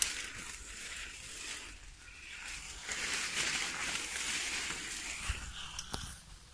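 Leaves and branches rustling and swishing against bodies as people push through dense undergrowth, louder from about halfway, with a couple of sharp clicks like snapping twigs.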